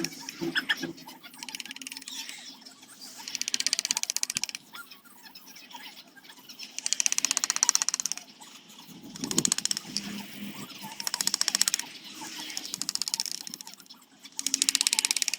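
A hand tool working zelkova wood in repeated strokes, each a rapid, crackly rasp about a second long, coming every two to three seconds.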